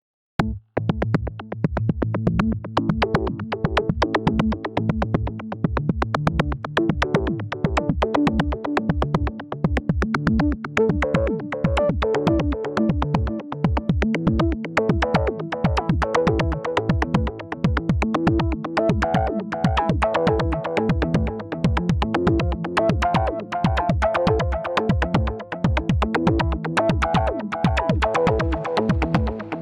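AAS Ultra Analog VA-3 virtual analog synthesizer plugin playing an electronic pattern: a fast, steady pulse of short percussive hits under sustained bass and chord tones, starting about half a second in.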